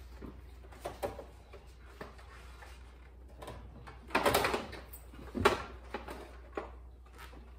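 Handling noises as a ductless mini split indoor unit is picked up: scattered light knocks, a brief scraping rustle about four seconds in and a sharp knock just after it.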